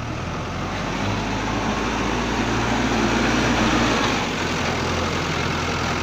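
JCB 3DX backhoe loader's diesel engine running close by. It gets louder over the first few seconds, then drops back about four seconds in.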